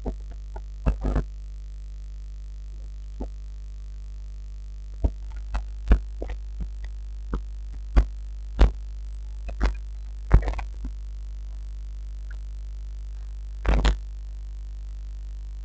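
Steady low electrical hum with irregular sharp clicks and knocks on top, about fifteen of them, a few coming in quick pairs.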